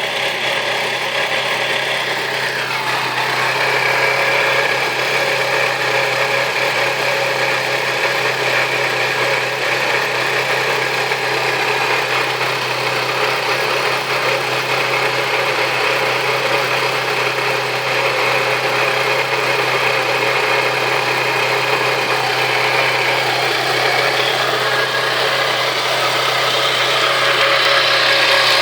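Saturn Ion Red Line's supercharged 2.0-litre Ecotec four-cylinder running steadily with an odd noise. A higher hiss comes up and grows louder near the end.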